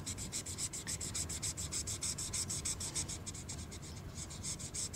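Imagine Ink magic marker scribbling quickly back and forth on a colouring-book page: a dry, rubbing scratch at about ten strokes a second, easing off for about a second some three seconds in and then picking up again.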